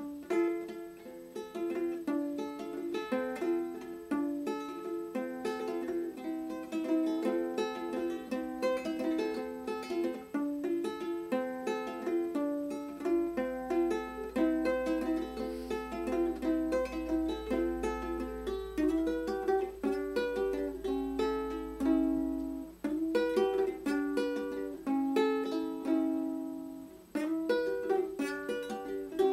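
Solo ukulele playing an instrumental melody: plucked notes and chords, each ringing and fading before the next.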